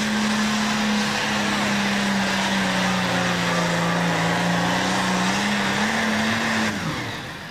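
Super stock pulling tractor's turbocharged diesel engine running at full power, dragging the sled. Its pitch sags a little midway and climbs again, then drops away sharply about seven seconds in as the engine winds down.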